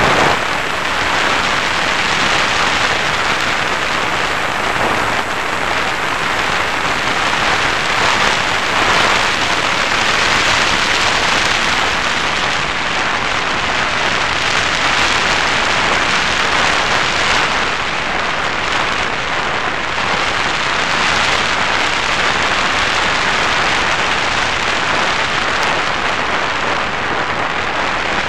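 Steady rushing airflow on the onboard camera of an FPV Raptor model plane in flight: a loud, even hiss with no clear motor tone.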